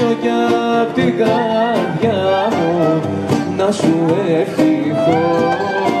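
Live Greek folk dance music: bouzouki and violin carry a bending melody over guitar chords and the beat of a toumbeleki hand drum.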